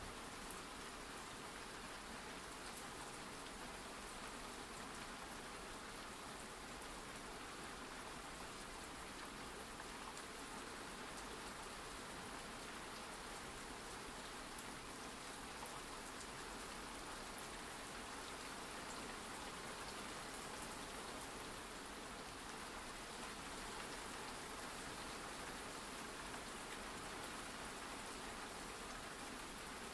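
Faint, steady rain ambience: an even hiss of falling rain with small patters, unchanging throughout.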